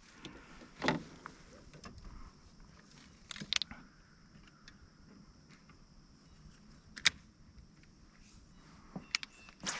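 Light clicks and knocks from fishing tackle and the canoe as a lure is cast and worked, the sharpest click about seven seconds in, over a quiet lake with a faint steady high hiss.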